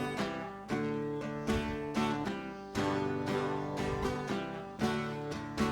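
Instrumental music: chords strummed in a steady rhythm, the accompaniment to a comic song, played between sung lines.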